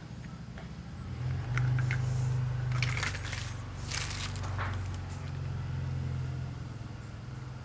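Small plastic toy figures clicking against each other and bubble wrap crackling as they are handled and sorted, in a few short bursts. Under it a low steady hum swells in about a second in and eases off near the end.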